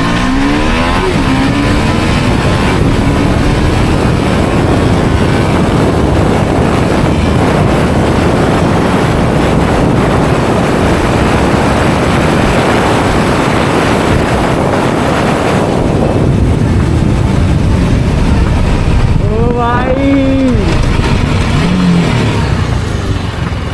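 TVS Apache RR 310 motorcycle riding at speed, engine running under heavy wind rush on the helmet microphone. About sixteen seconds in, the wind noise drops away as the bike slows.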